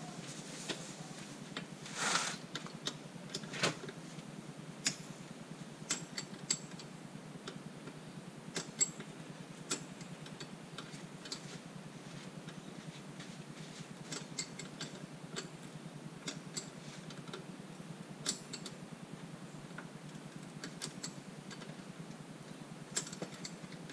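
Scattered light metallic clicks and taps of a spanner on the trim-line nut and bolts of a MerCruiser stern drive as the fittings are undone, with a short rustling noise about two seconds in.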